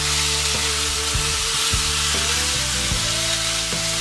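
Striped bass fillets sizzling steadily on a hot, oiled cast iron grill pan, a constant high-pitched hiss of the fish searing on the grate.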